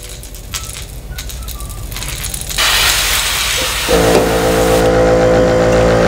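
A few light clicks, then an airbrush spraying paint with a steady hiss from about halfway through. About a second later the airbrush compressor's motor starts and hums steadily under the hiss.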